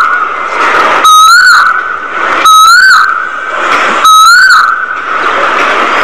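A flock of budgerigars chattering, with three loud, identical whistled calls that each rise and then fall, about a second and a half apart.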